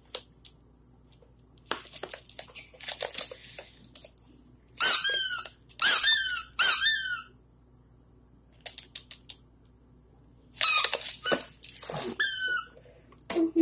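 Rubber squeaky dog toy squeezed by hand: three loud squeaks about halfway through, then a quicker run of squeaks near the end, with softer rustles and scrapes in between.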